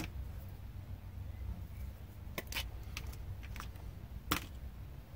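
Light clicks and taps of small plastic and metal parts being handled and set down on a workbench while a sander is taken apart, with one sharper knock about four seconds in, over a low steady hum.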